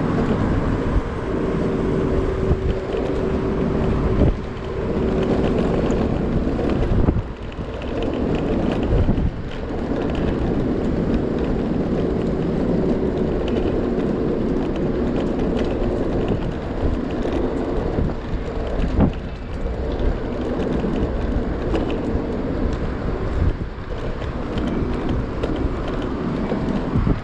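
Wind buffeting the microphone and road rumble from a moving Yimi S600 three-wheeled electric scooter, with a steady hum that comes and goes.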